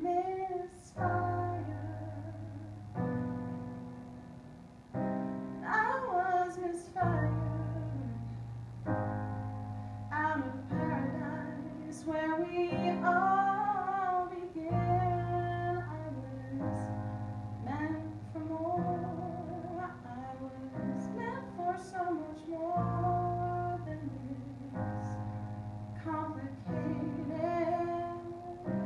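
A woman singing a slow melody, accompanied by held chords on an electronic keyboard that change about every two seconds.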